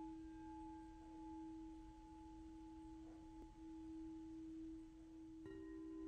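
Singing bowl ringing with one long, held low tone that slowly wavers in loudness. About five and a half seconds in, a second bowl is struck and adds a slightly higher ringing tone.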